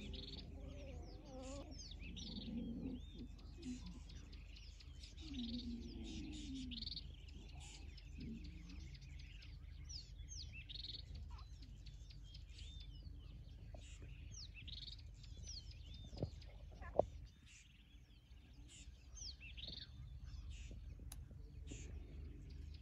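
Savanna birds chirping and whistling, many short rising and falling notes over a steady low rumble. Two sharp clicks a little over halfway through are the loudest sounds.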